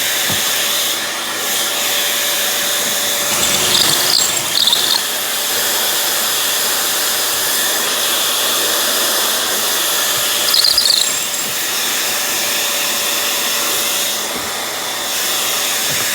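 Small electric blower motor running steadily with an airy hiss and a whine, twice briefly growing louder and shriller, about four seconds in and again about eleven seconds in.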